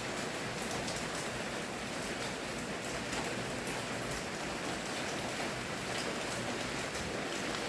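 Steady rainfall: an even hiss of rain with scattered drop ticks.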